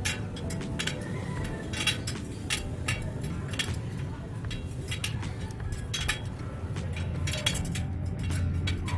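Bicycle spokes being tightened with a spoke wrench: irregular sharp metallic clicks and clinks, a few a second, over a steady low background rumble.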